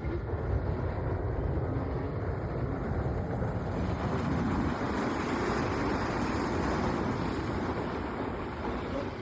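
Muddy floodwater rushing, a steady heavy noise carrying dirt and stones.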